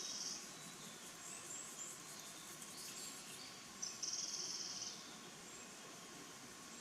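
A songbird's song: a sharp opening note and then a rapid, high trill about a second long, about four seconds in, with the end of another such trill just at the start. The recordist takes it, with some doubt, for a Japanese robin. Faint high notes sound in between.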